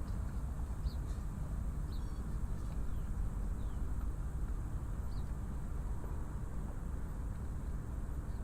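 Harbour ambience: a steady low rumble, with short, high bird chirps every second or so through the first half.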